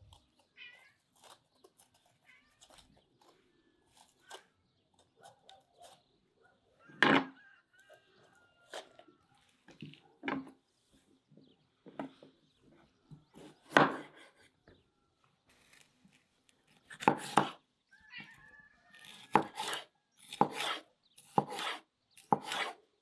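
Large knife cutting red bell peppers on a wooden cutting board: a few widely spaced cuts knocking on the board, then quicker chopping in the last few seconds.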